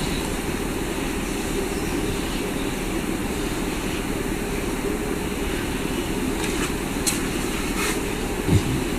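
Steady low rumbling hum of background machinery, with a few faint clicks in the last few seconds and a short low sound that falls in pitch near the end.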